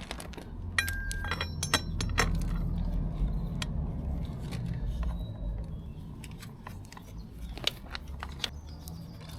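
Small metal parts clinking and jingling, with sharp clicks that ring briefly, mostly in the first couple of seconds and scattered after, over low handling rumble.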